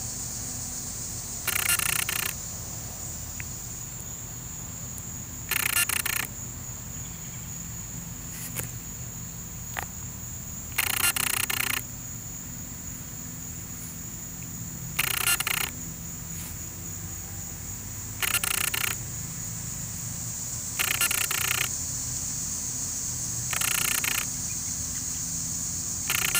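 Steady high-pitched insect chorus, with a short louder buzzing burst about every three to five seconds and a faint low hum underneath.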